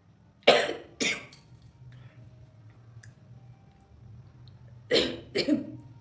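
A person coughing in two pairs of sharp coughs, the second pair about four seconds after the first, brought on by the smoke of burning dry red chilli.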